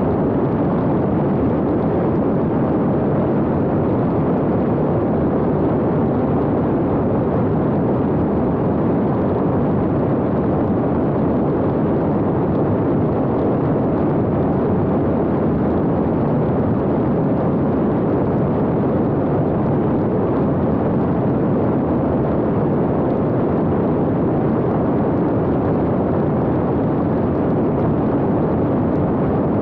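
Steady, unbroken rush of wind and airflow over the onboard camera of an X-UAV Talon fixed-wing drone in flight.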